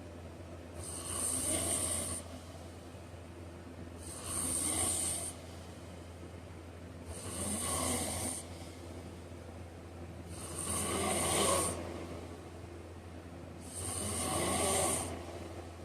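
A man snoring in his sleep, five snores about three seconds apart, each with a hissy edge on the breath, over a steady low hum.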